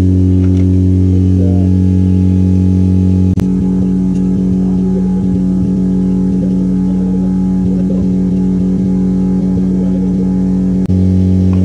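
A loud, steady low hum with evenly spaced overtones. Its deepest part turns fluttery about three seconds in and steadies again near the end.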